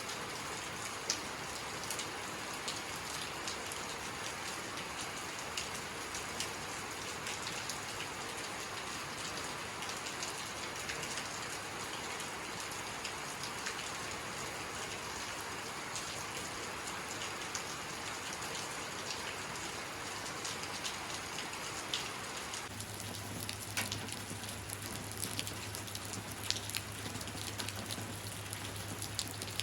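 Steady rainfall with scattered louder drops. About 23 s in the sound changes abruptly: the dense hiss thins, a low steady hum comes in, and individual drops stand out more sharply.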